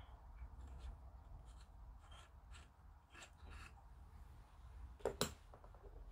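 Faint rustling and light clicks of small plastic model-kit parts being handled and fitted, with two sharper clicks in quick succession about five seconds in, over a steady low hum.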